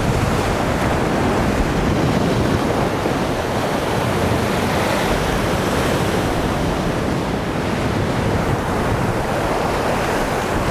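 Mediterranean sea surf washing onto the shore in a steady rush, with wind buffeting the microphone.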